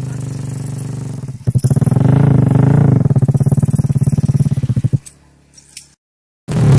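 Yamaha Vega motorcycle's single-cylinder engine, tuned up to 130 cc, running at idle. About a second and a half in it gets louder and is blipped up and down a little, then it stops abruptly about five seconds in.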